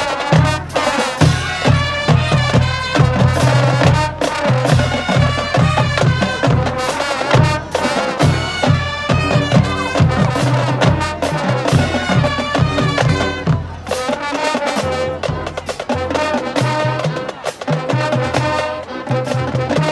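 Marching band playing: brass with sousaphones and drums, the drums striking sharply in a steady rhythm.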